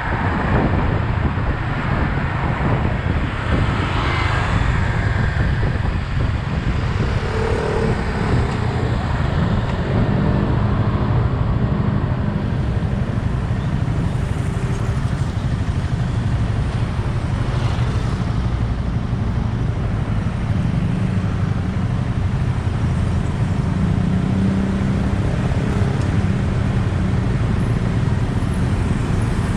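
Yamaha XSR 155's single-cylinder engine running steadily while riding in road traffic, mixed with steady road and traffic noise.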